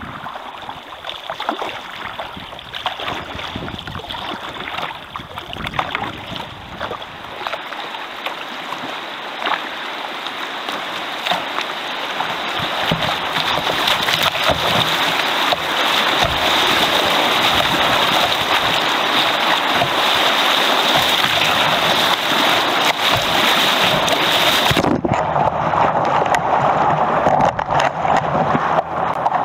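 Rushing river water splashing against and over a kayak running a rapid, growing louder about halfway through. Near the end the sound suddenly turns muffled.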